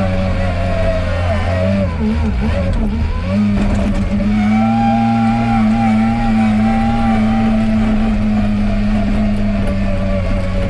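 Wheel loader's diesel engine running under load while pushing snow. Its pitch dips and wavers about two seconds in, then rises and holds steady at higher revs.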